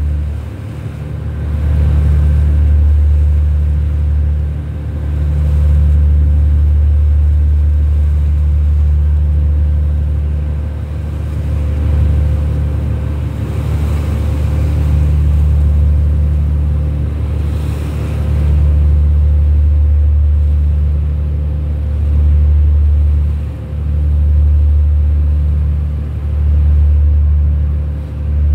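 Small boat's engine running steadily under way: a loud low rumble with a faint steady whine above it and occasional brief dips in level.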